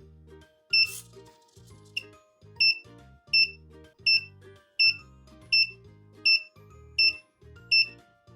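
Short, high-pitched electronic beeps repeating about every three-quarters of a second, starting about a second in, over background music with a slow, even chord pattern.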